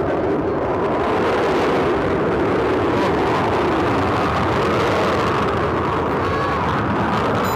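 Military jet flying over during an aerial display: a loud, steady jet engine noise that holds at an even level, with a faint whine.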